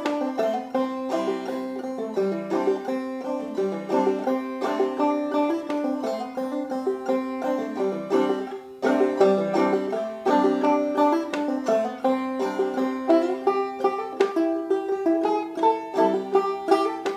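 Five-string banjo played clawhammer style: a tune in a quick, even run of plucked notes, dipping briefly a little past halfway before picking up again.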